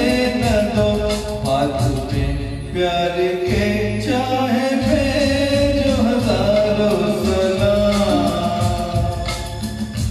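Man singing a Hindi film song into a microphone over a karaoke backing track.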